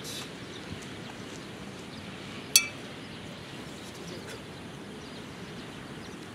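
A pair of metal sai clinking together once, about two and a half seconds in: a sharp metallic clink with a brief ring, over steady outdoor background noise.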